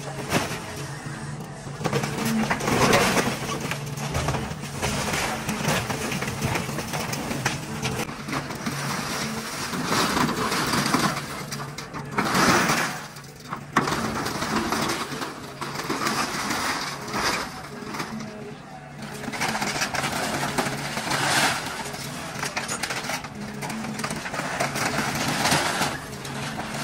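Excavator engine running steadily while its bucket and hydraulic thumb crush a truck cab and scrap metal, with repeated surges of crunching and scraping sheet metal every few seconds.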